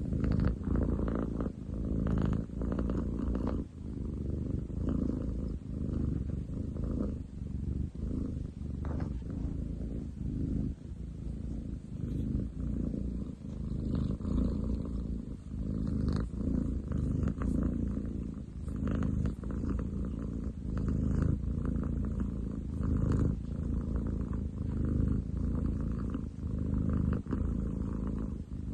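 Long-legged munchkin cat purring very loudly close up, a deep continuous purr that swells and fades about once a second.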